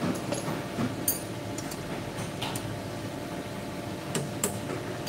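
Several short, sharp metallic clinks of metal parts being handled while the grinding wheel is changed on a tool grinder, over a steady hum.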